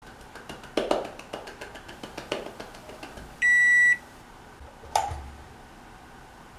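A run of clicks and knocks, then a single high electronic beep lasting about half a second, then a sharp clack as the lid of a round black countertop appliance is lifted open.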